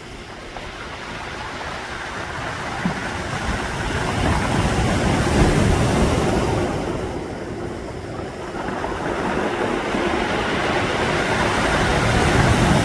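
Sea waves surging and washing ashore in two slow swells, rising and falling over several seconds each.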